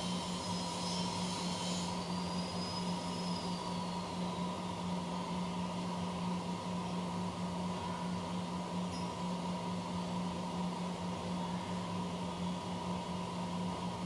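CNC machine running steadily: a constant motor hum with a steady higher tone, and a faint high whine that drops in pitch a few seconds in.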